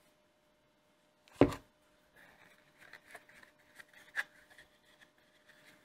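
A single sharp thump about a second and a half in, then faint rustling and a few light clicks as a leather strip is handled and bent round into a cuff shape.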